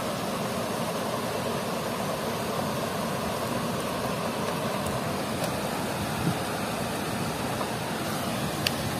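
Steady rushing noise of water pouring through a weir's sluice gates, with a couple of small clicks, the sharpest one near the end.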